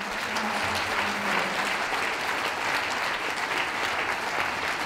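Audience applauding: dense, steady clapping at an even level.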